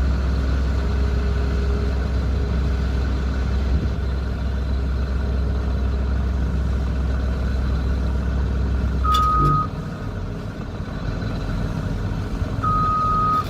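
Heavy diesel machinery running with a deep, steady rumble that drops away about two-thirds of the way through. Two single-pitch electronic beeps sound, a short one and then a longer one near the end, like a machine's warning or travel alarm.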